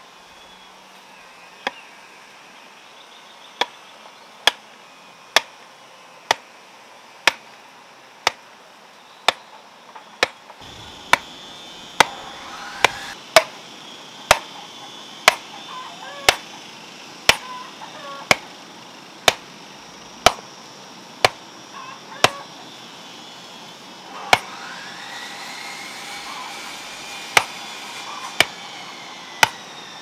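Hammer striking the top of a bamboo fence post to drive it into the ground, one sharp knock about every second, with a short pause in the last third before the blows resume.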